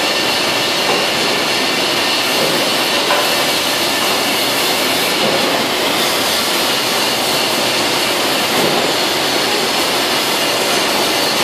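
Spray painting in a paint booth: the steady, loud rushing hiss of a compressed-air paint spray gun and the booth's airflow, running without a break.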